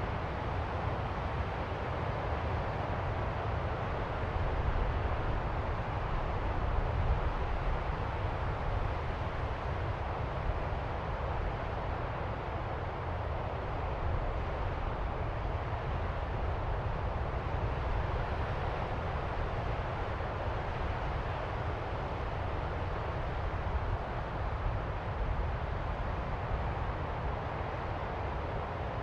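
Distant ocean surf: a steady wash of waves with a deep low end, swelling a little about five to seven seconds in.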